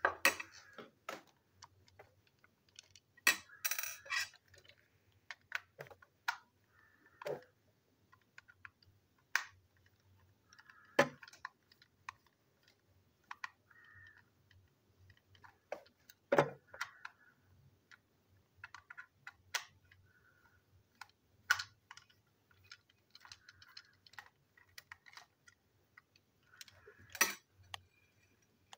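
Irregular clicks and taps of a plastic toy engine being handled and unscrewed with a small screwdriver, with a few louder knocks among them as parts and small screws are set down on the tabletop.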